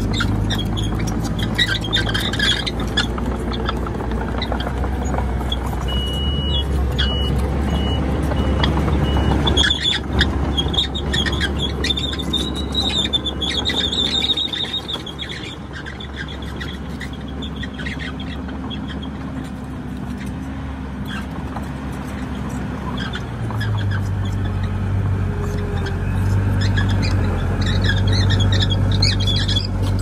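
Komatsu D31PX crawler bulldozer's diesel engine running under load, with high metallic squeals and squeaks over it, typical of steel tracks and undercarriage. The engine grows louder past the middle. A few short high beeps sound about a quarter of the way in.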